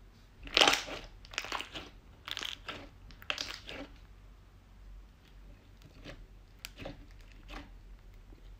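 Clear glitter slime being pressed and squeezed by hand in a bowl, squishing in a series of short bursts: the loudest about half a second in, several more over the next three seconds, then fainter ones in the second half.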